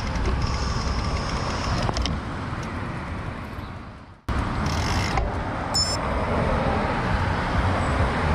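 Steady road and wind noise while riding a bicycle on city streets, with a strong low rumble. It fades away about four seconds in, then cuts back in suddenly at the same level.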